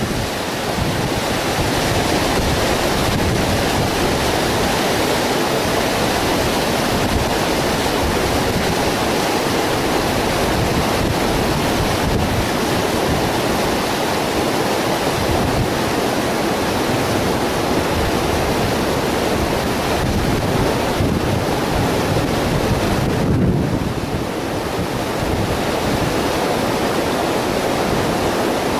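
Airbus A320-214's CFM56 turbofan engines on landing approach: a steady, broad rushing roar, with wind buffeting the microphone underneath.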